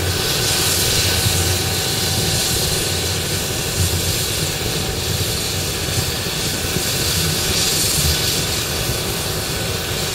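Helicopter running on the ground with its rotor turning: a steady engine whine under a loud rush of rotor wash, with a low rumble beneath.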